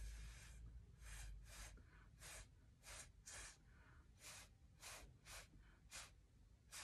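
Faint, breathy puffs of air blown through a drinking straw, spreading wet acrylic paint along the canvas edge: one longer blow at the start, then about ten short puffs, roughly two a second.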